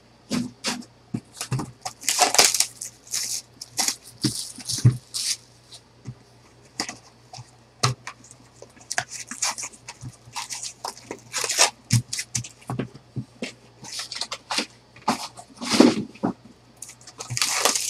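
Handling of foil-wrapped trading-card packs and a cardboard hobby box: the wrappers crinkle and rustle and the cardboard scrapes and taps on the table in short, irregular crackles and clicks, louder in a few clusters as the box is opened and the packs are taken out.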